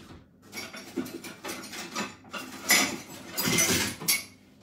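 Kitchen utensils clattering and scraping against dishes in uneven bursts, loudest about two and a half to four seconds in.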